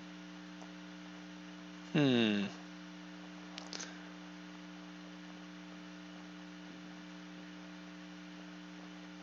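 Steady electrical mains hum, with one short vocal groan about two seconds in that falls in pitch.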